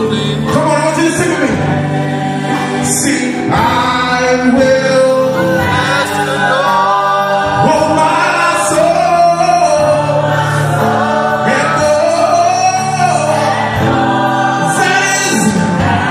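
Gospel song performed live: a man sings lead into a microphone with a group of backing singers, over steady sustained accompaniment, amplified through loudspeakers.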